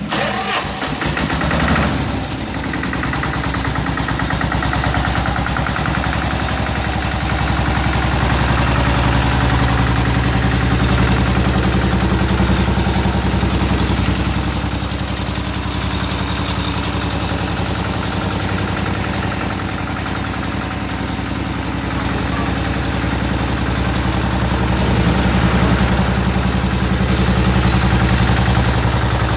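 Old Ruggerini diesel engine in a custom motorcycle starting up in the first couple of seconds, then running steadily at idle with an even low pulse. It gets a little louder for a few seconds twice.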